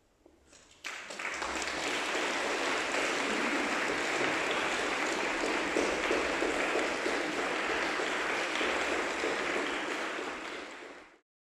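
Audience applauding, breaking out suddenly about a second in and cutting off abruptly near the end.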